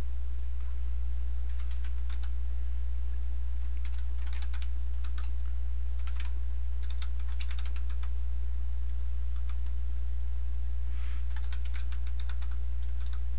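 Computer keyboard being typed on in about five short bursts of rapid keystrokes, with pauses between them. A steady low hum runs underneath and is the loudest thing throughout.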